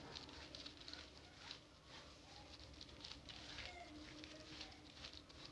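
Faint rubbing and light patting of a bare hand wiping marker writing off a plastic sheet on a wall, a scatter of soft scuffs.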